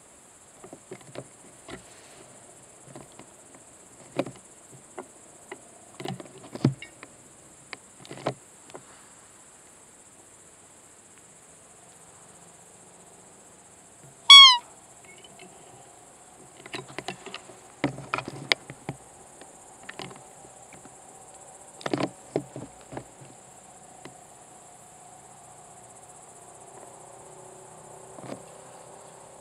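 One short, loud, high squeak from a hand-held roe deer call about halfway through, an imitation of a roe doe used to lure a rutting buck, over the steady high chirring of crickets, with scattered soft knocks and rustles.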